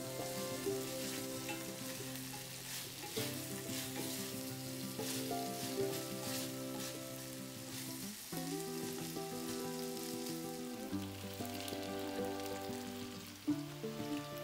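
Chicken pieces sizzling in an enamelled cast-iron braiser, stirred and scraped with a wooden spatula, over soft background music with sustained chords. Near the end a liquid is poured into the hot pan.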